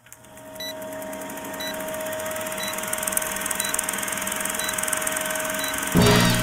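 Old-film countdown sound effect: a steady film-projector whir and crackle with a short high beep about once a second, growing gradually louder. Music with a beat comes in near the end.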